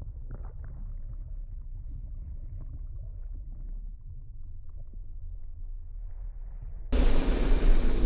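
A muffled low rumble of river water, heard with the camera submerged in the Animas River. About seven seconds in, the camera breaks the surface and loud rushing, splashing water suddenly cuts in.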